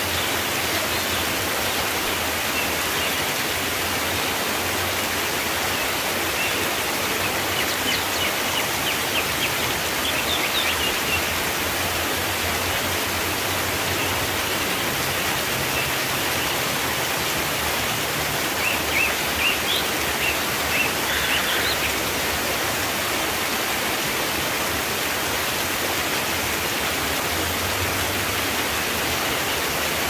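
Waterfall cascading down rock ledges: a steady, even rushing of falling water. A few short high chirps come through it about a third of the way in and again about two-thirds in.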